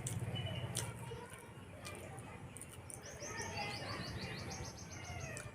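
A small bird calling a fast trill of short, high notes, about eight a second, starting about three seconds in and lasting about two seconds. A few sharp clicks are heard before it.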